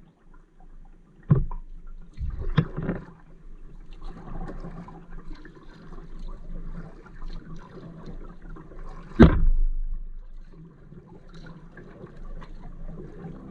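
Kayak paddling: the paddle dips and water swirls along the hull. There are a few sharp knocks, the loudest about nine seconds in.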